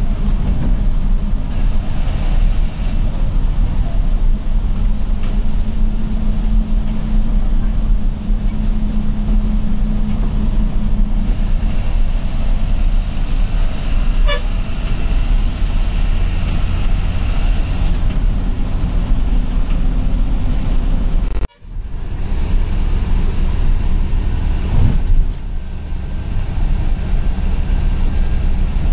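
Ashok Leyland bus engine and road noise heard from inside the cab while driving. A horn honks about halfway through, and the sound cuts out for a moment about two-thirds of the way in.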